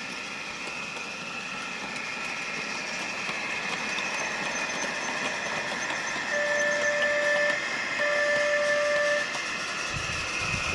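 Large-scale garden-railway model diesel locomotives running along the track with a steady hum that slowly grows louder. About six and eight seconds in, a loco's sound unit gives two horn blasts of about a second each.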